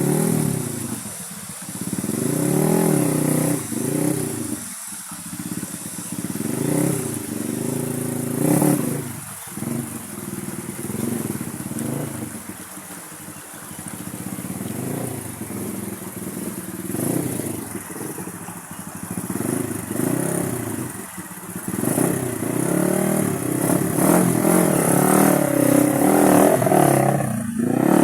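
Honda XRM 150 underbone motorcycle's single-cylinder four-stroke engine revving up and down over and over, its pitch rising and falling every second or two with brief drops, as the bike is pushed through a river crossing. The engine runs louder and higher over the last several seconds.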